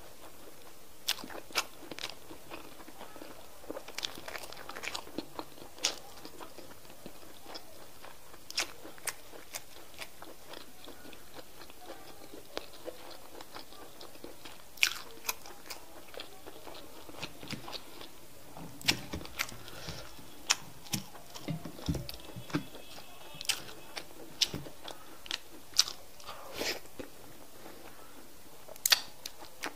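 Close-miked mouth sounds of a person eating okra soup with semolina fufu by hand: wet chewing with irregular sharp mouth clicks.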